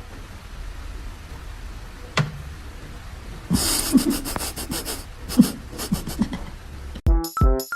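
An animal's noisy, breathy puffs in short bursts over a low hum, with a single click before them; electronic music with a steady beat starts near the end.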